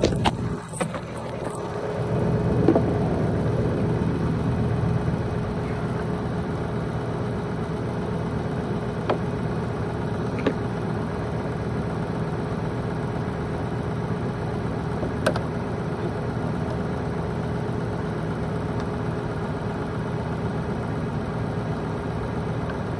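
An engine running steadily at idle, dipping briefly near the start and picking up again about two seconds in.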